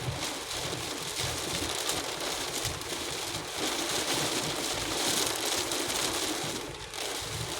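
Heavy rain and gusting wind striking a moving car, heard from inside the cabin as a steady dense hiss that swells and eases, with low road and engine noise beneath.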